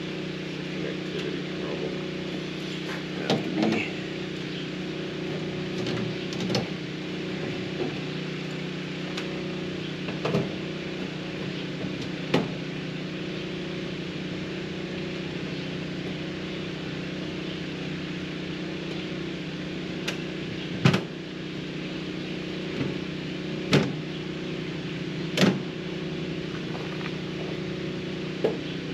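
Steady low hum with scattered metallic clicks and knocks as the access door and panels of the Mitsubishi heat pump's outdoor unit are handled and removed.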